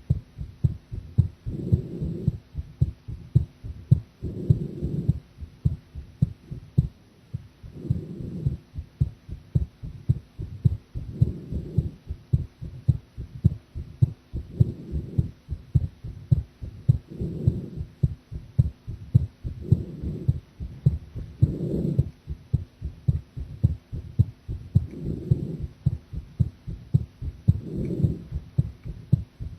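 A woman's heartbeat heard through a chest microphone: a fast, even run of low lub-dub thumps, with a broader, louder swell coming back every three seconds or so.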